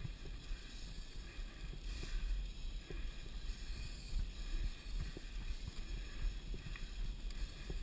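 Mountain bike riding over a bumpy dirt singletrack: a steady low rumble of wind and motion on the camera microphone, with frequent small rattles and knocks from the bike over the rough ground.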